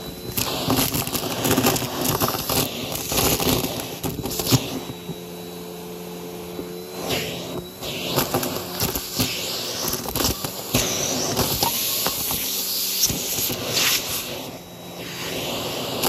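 Vacuum cleaner with a brushroll running over a rug: a steady motor hum under frequent, irregular crunches and crackles as debris hidden in the rug is sucked up.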